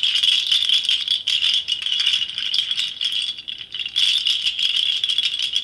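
A bunch of large dried seed pods strung together on cords, shaken as a rattle: a dense, continuous clattering of many small clicks that eases briefly about three and a half seconds in.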